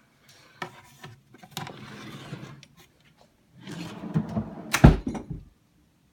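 Knocks, clicks and scraping as objects are handled, with one sharp knock about five seconds in.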